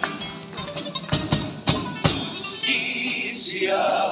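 Cádiz carnival-group music: Spanish guitars and sharp drum beats in an instrumental passage, with the male chorus coming in singing near the end.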